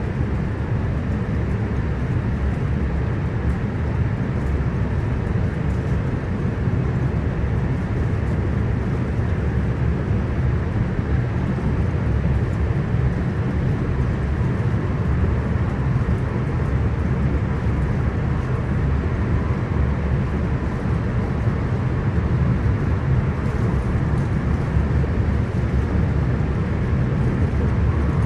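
Interior cabin noise of a Hitachi AT300 electric multiple-unit passenger train running along the line: a steady low rumble with an even rushing noise over it, holding level throughout.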